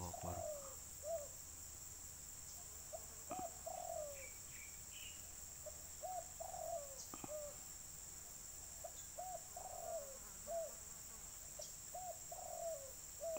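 Spotted dove cooing: about six short phrases of rising-and-falling coos, one every two to three seconds. A steady high insect buzz runs behind it.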